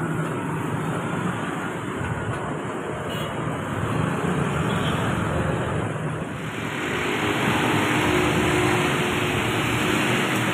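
Road traffic noise from slow, congested cars and motorcycles: a steady mix of engines and tyres. About six seconds in it turns louder and more hiss-like.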